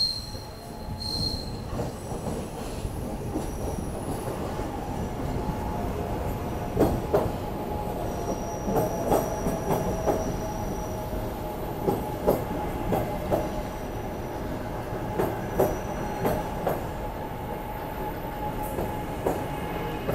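SEPTA Market-Frankford Line train pulling into the platform. It opens with two short, high wheel squeals, then runs with a steady whine while its wheels clack repeatedly over the rail joints.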